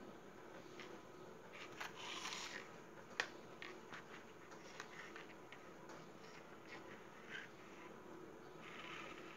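Faint clicks, taps and scraping of plastic toy vehicles, a toy airliner and a toy car, handled and pushed across a concrete floor. One sharper click comes about three seconds in.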